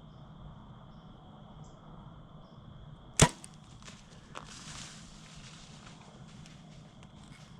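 A hunting bow is shot: one loud, sharp snap of the string about three seconds in, followed a second later by a softer click and a short rustling hiss. The arrow went right over the buck's back, a miss.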